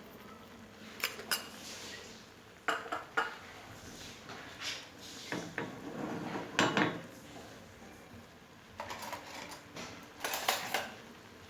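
A metal utensil knocking and scraping against a cooking pan in a series of short, irregular clatters, loudest about two-thirds of the way through.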